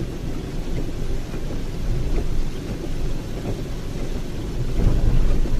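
Heavy rain on a car's windshield and roof, heard from inside the cabin over the low rumble of tyres on a wet road. The rumble swells briefly near the end.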